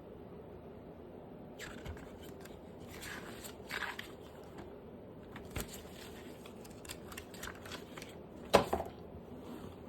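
Packaging being handled during an unboxing: intermittent rustling and scraping with light clicks, and one sharp click about eight and a half seconds in.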